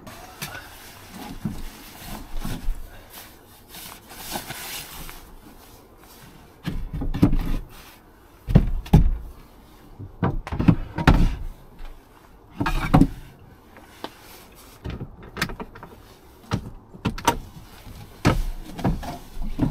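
Irregular knocks, thumps and scrapes of bedding and a wooden bed board being moved around in a pickup truck bed under a camper shell. The knocks come thickest and loudest in the second half.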